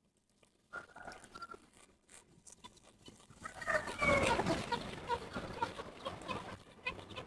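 Chickens clucking, a run of short, evenly repeated clucks in the second half, with a louder, busier burst of sound about four seconds in.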